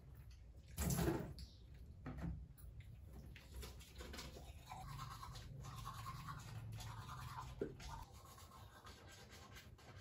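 Faint scrubbing at a sink, with a brief louder rustle about a second in and a few small knocks.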